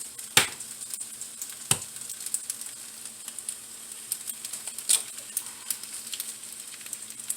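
Eggs and leftover noodles with spinach frying in a hot pan: a steady sizzle with frequent small pops and crackles, and two sharp knocks within the first two seconds.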